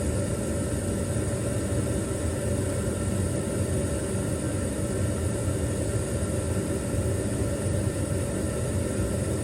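Draft inducer fan motor of a Bryant 310AAV gas furnace running with a steady hum, in the first stage of the start cycle while the new hot-surface igniter heats up before the gas comes on.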